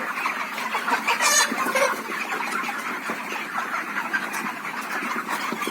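A flock of chickens clucking continuously, many birds calling over one another, with one higher-pitched call standing out about a second and a half in.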